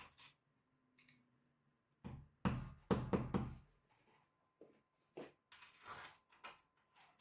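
Knuckles knocking on a painted wall, sounding it out. A quick run of about five loud knocks comes about two seconds in, followed by softer, spaced knocks.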